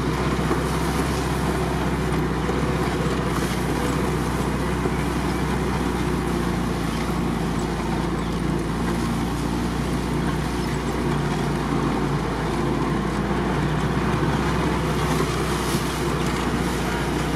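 GAZ-69 off-roader's engine running steadily as it drives along a muddy, waterlogged forest track, heard from inside the cab.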